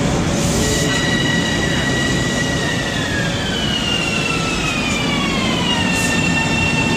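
Long Island Rail Road electric multiple-unit train braking to a stop at the platform: a whine that glides down in pitch over a few seconds as the train slows, then levels off, over a steady rumble of wheels on rail.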